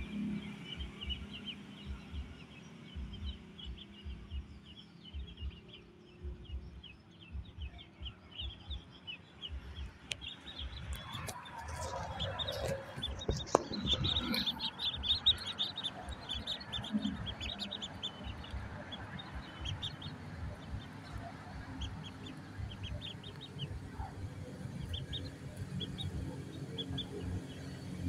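A flock of ducklings peeping, many short high calls overlapping, busiest around the middle, over an uneven low rumble.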